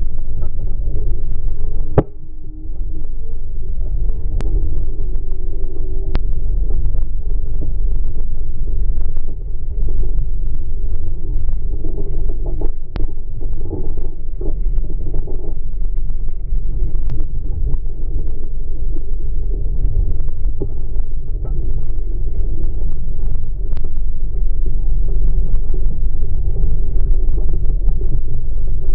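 Two-stroke GT VRO outboard motor running steadily at speed while towing, mixed with a steady low rumble of wind and rushing wake water.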